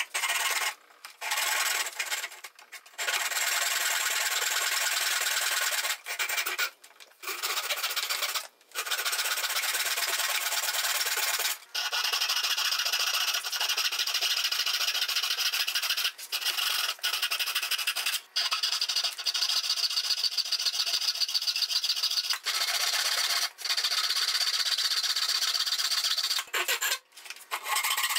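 Handsaw cutting by hand through a softwood 2x4: a steady run of fast back-and-forth strokes, broken by short pauses every few seconds.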